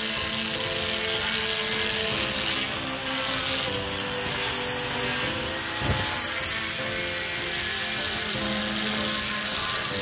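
Electric angle grinder with a sanding disc running steadily against pine wall planks, a continuous whirring hiss, with a brief thump about six seconds in. Background music plays underneath.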